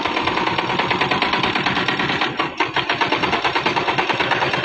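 Heavy machinery running with a fast, even rattle, many strokes a second.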